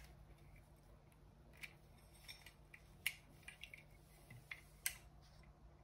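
Near silence: a few faint, light clicks and taps of small objects being handled and packed, over a low steady room hum.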